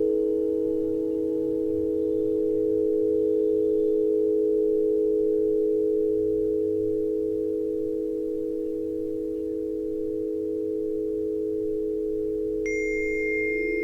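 Sustained electronic tone effect: several steady low-mid pitches held together as one continuous chord, with a higher tone joining near the end.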